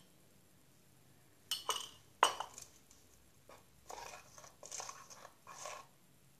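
A utensil clinking and knocking against a bowl, with one sharp knock the loudest, then three short scraping spells as flour is mixed into a homemade slime batch.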